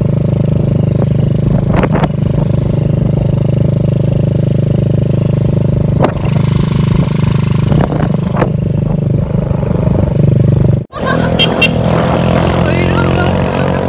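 Small motorcycle engine running at a steady speed on the move, with a few short knocks. It breaks off abruptly about eleven seconds in and resumes as a motorcycle with a sidecar runs alongside on the road.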